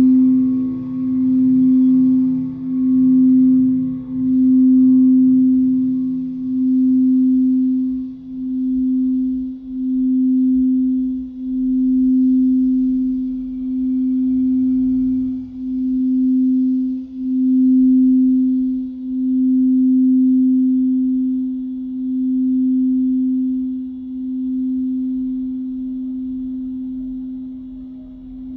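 Singing bowl ringing on one sustained low tone, pulsing in regular swells about every second or two, then fading away near the end.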